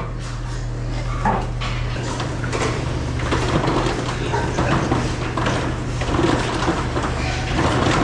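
Pigs being driven down a slatted-floor barn alley: a busy, irregular jumble of pig noises and trotters on the slats, building after the first couple of seconds, over a steady low hum. A couple of knocks near the start.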